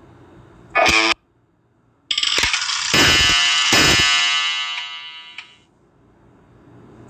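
Nokia E72 ringtones played back through a Samsung Galaxy A51 phone speaker: a short burst of tone about a second in, then a bright ringing tone with a few struck notes from about two seconds in that fades out well before the end.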